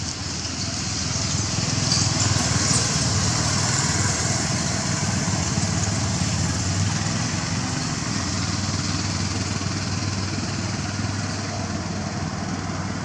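Steady drone of a motor vehicle's engine, growing louder about two seconds in and then slowly easing, under a steady high hiss.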